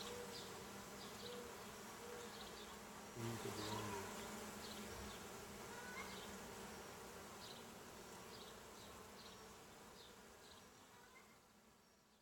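Honey bees buzzing steadily around an open hive during a frame inspection, with a brief bump about three seconds in. The buzz fades gradually toward the end.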